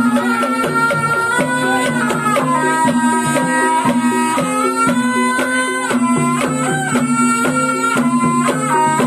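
Live Banyumas ebeg accompaniment: a slompret (Javanese shawm) plays a held melody that steps between long notes, over gamelan with repeating pitched beats and regular drum strokes.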